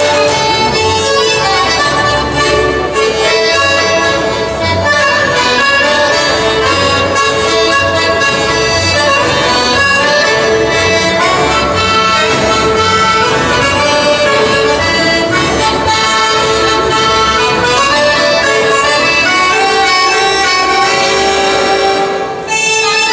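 Live Friulian folk dance music: an accordion plays a sustained melody over a double bass keeping an even beat. The music thins briefly near the end.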